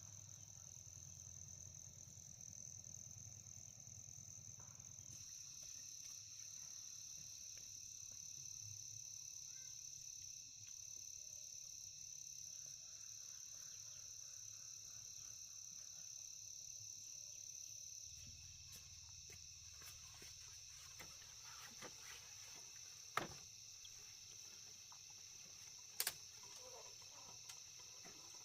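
Faint insect chorus trilling steadily in one high, unbroken band, with a few sharp clicks near the end, two of them louder.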